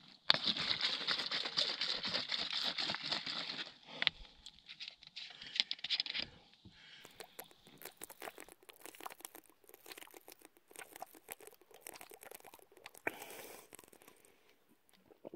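Plastic packaging and a plastic drink bottle being handled: dense crinkling and crackling for the first four seconds or so, then fainter scattered clicks and rustles.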